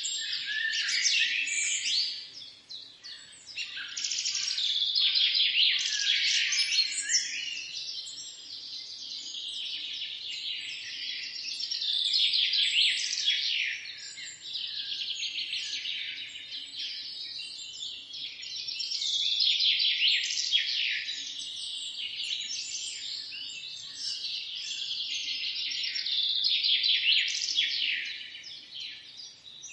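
Many small birds chirping and twittering together in a dense, continuous chatter that swells and eases every few seconds.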